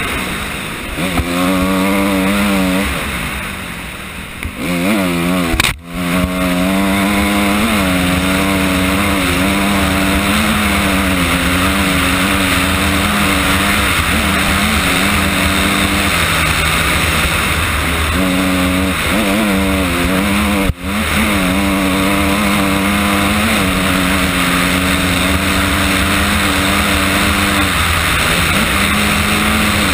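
Honda CRF250R's single-cylinder four-stroke engine running under load on a dirt trail, its pitch rising and falling with the throttle and gear changes. It eases off and drops in pitch over the first few seconds, then pulls steadily; the sound cuts out for an instant twice, about six and twenty-one seconds in.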